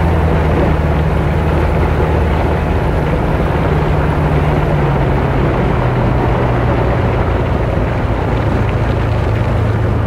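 Speedboat engine running steadily at speed over water and wind noise, its pitch dropping slightly about five seconds in.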